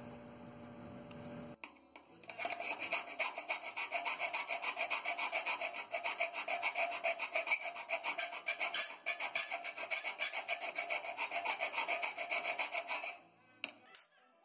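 Hand file rasping back and forth on steel in quick, even strokes, squaring out drilled holes in a steel panel. The strokes start about two seconds in and stop about a second before the end, followed by a couple of light clicks.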